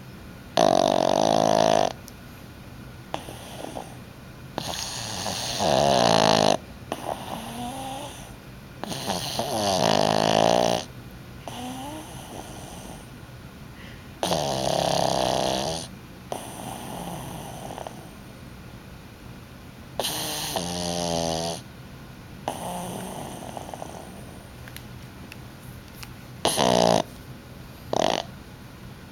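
Pug snoring in its sleep: about seven loud snores, each one to two seconds long, coming every few seconds with quieter breaths between them and a longer gap partway through. The owner takes this snoring for sleep apnea.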